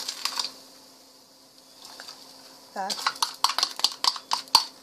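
Metal spoon scraping and clinking inside a plastic tub of sugar as spoonfuls are scooped out, in two runs of quick scrapes with a pause between. A faint steady hum runs underneath.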